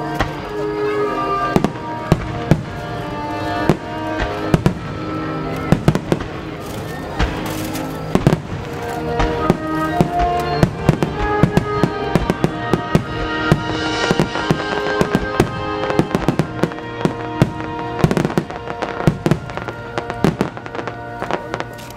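Starmine fireworks display: many sharp bangs of shells launching and bursting in quick succession, some overlapping, with music playing throughout.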